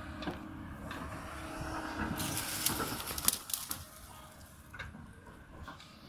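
Kobelco 220 excavator's diesel engine running under load while cutting the hillside. About two seconds in, a rushing rattle with sharp clicks lasts for under two seconds as earth and stones slide down the slope.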